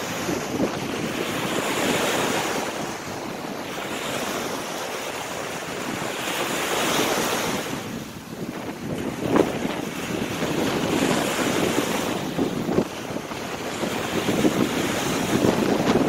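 Small waves breaking and washing up a sandy shore, the surf swelling and ebbing every few seconds, with wind rushing across the phone's microphone.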